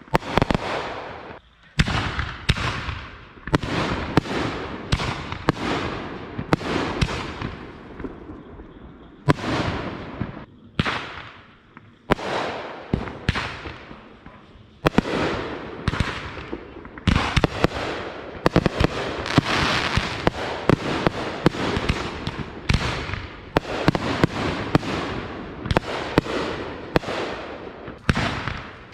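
Consumer fireworks going off in a rapid, near-continuous string of sharp bangs, about one to two a second, each followed by a fading crackle.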